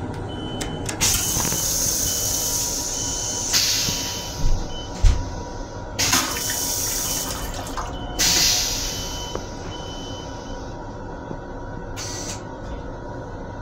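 Metro-North M7 railcar toilet flushing: a loud hissing rinse into the stainless steel bowl that starts about a second in, surges several times, then fades away, over a steady low hum.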